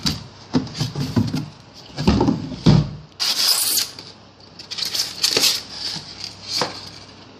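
Hands unpacking and handling box contents such as a power cable: irregular clatters and knocks, with a short rustling hiss about three seconds in.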